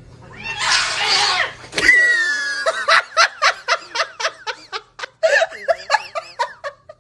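A cat hissing, then a quick string of short calls, several a second, each rising and falling in pitch.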